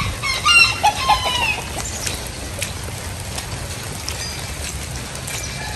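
A rooster crowing once near the start, about a second and a half long.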